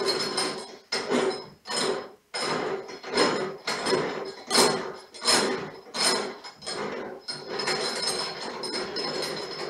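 A hand tap cutting threads in a metal hole, turned by the handwheel of a tapping stand in short back-and-forth turns: a run of scraping strokes, one or two a second, that grows steadier near the end, over a steady hum.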